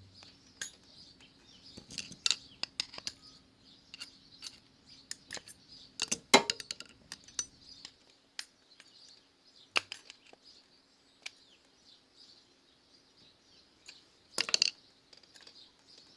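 Scattered light metallic clicks and taps of hand work on a motorcycle's rear brake caliper, as parts are fitted back in during a brake pad change, with a small cluster of quick clicks about six seconds in.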